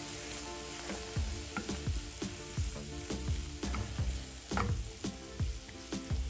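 Food sizzling as it fries in a pan and is stirred, with repeated short knocks and scrapes of the utensil against the pan.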